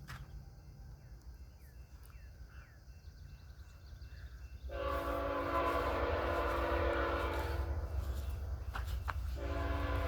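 BNSF ET44C4 locomotive's air horn sounding a chord of several tones: one long blast starting about halfway through, then a second blast beginning near the end, over the low rumble of the approaching train.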